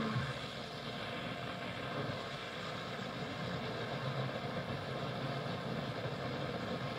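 Kraco KID-581H car radio giving steady AM static between stations, tuned near the top of the AM dial.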